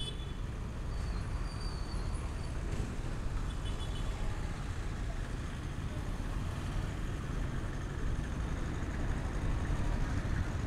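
Street traffic: a steady low rumble of passing road vehicles, with a few faint high squeaks or chirps about a second in and again a few seconds in.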